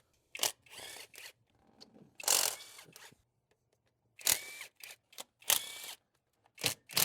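Socket ratchet clicking in short bursts, several strokes with pauses between them, as the 13 mm intake manifold bolts are loosened.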